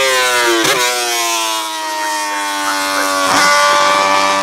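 Racing motorcycle engine running hard, its pitch falling slowly for a few seconds, with two brief sharp breaks, one a little under a second in and one about three seconds in, after which the note holds steadier.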